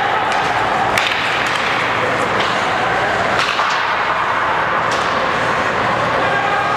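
Ice hockey play in a rink: a steady wash of arena noise broken by sharp cracks of stick and puck, about a second in, at about three and a half seconds, and near five seconds.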